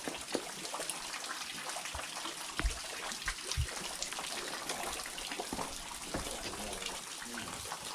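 Steady hiss of running and dripping water, with scattered small ticks and a few low knocks.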